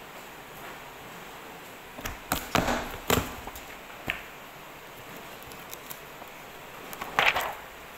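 Sheets of office paper handled at a desk beside a two-hole paper punch: a cluster of knocks and paper rustling about two seconds in, a single click a second later, and a short paper swish near the end.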